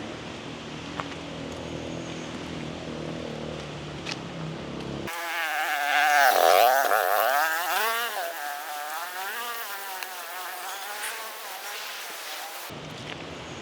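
A flying insect buzzing close to the microphone from about five seconds in. Its pitch wavers up and down as it moves, it is loudest a second or two after it arrives, and it stops abruptly near the end.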